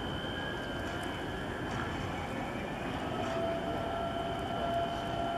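Steady background noise of a container-port waterfront, with a thin high tone held throughout and a fainter held tone coming in about three seconds in.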